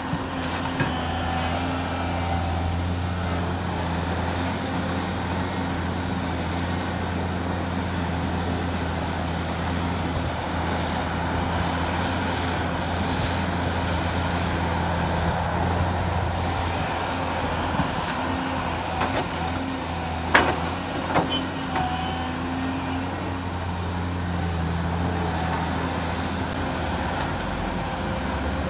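Diesel engine of a Volvo crawler excavator running as a steady low hum while it digs and loads, with the loaded Shacman F2000 dump truck's diesel also running. Two sharp knocks come a little under a second apart, about two-thirds of the way through.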